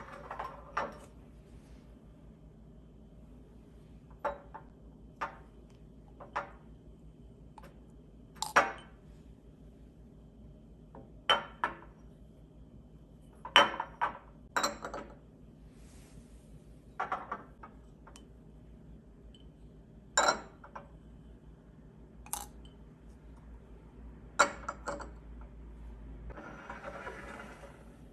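Cut-glass tealight holders clinking as they are set down and handled on a tabletop: about a dozen separate sharp clinks with a brief ring, irregularly spaced. A soft rustle comes near the end.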